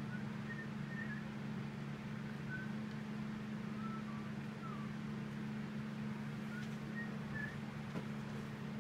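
A steady low machine hum, with faint short chirps scattered through it.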